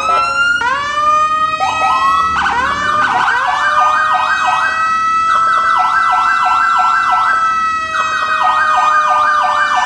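Several police car sirens sounding at once. Electronic wails rise and then hold, over a fast repeating yelp, and new sirens start up in the first few seconds.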